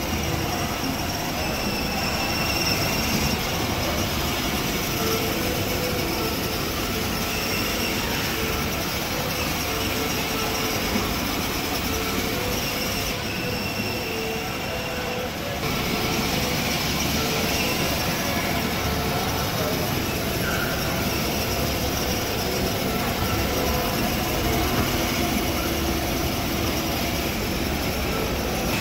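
Battery-powered ride-on toy jeep driving along, its small electric drive motors whining and its hard plastic wheels rolling on a tiled floor, a steady rumble.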